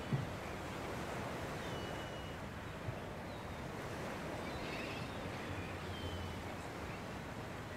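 Seaside ambience: a steady wash of waves and wind along a stone quay, with a few faint, short high bird calls and a soft thump just at the start.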